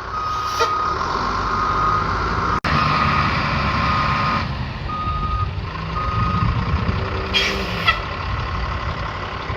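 A heavy truck's reversing alarm beeping, single-tone beeps about once a second over the low running of its engine; the beeps stop about two-thirds of the way through. A short hiss comes near the end.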